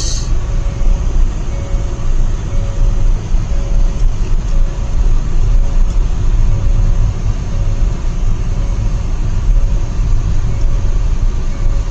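Steady low road and engine rumble heard inside a moving car, with a faint short tone repeating a little faster than once a second.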